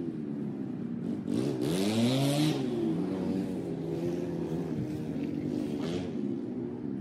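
An engine running in the background, its pitch rising and falling repeatedly, loudest about two seconds in when a hiss joins it.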